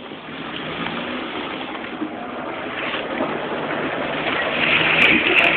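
Off-road car descending a rough dirt track, heard from inside the cabin: engine and road noise growing louder near the end, with a few sharp knocks about five seconds in.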